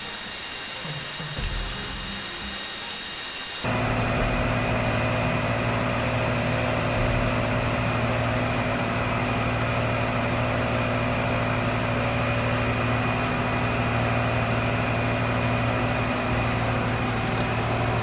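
ARB 12-volt onboard air compressor running steadily as it inflates a 37-inch off-road tire, a constant mechanical hum with a low drone. For the first few seconds a different sound with several high-pitched steady tones takes its place, and the hum comes back suddenly about four seconds in.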